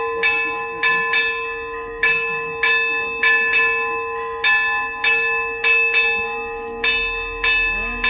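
Church bells ringing festively: quick, uneven strokes of at least two bells at different pitches, about two a second, each stroke ringing on under the next, over a steady low hum from the bells.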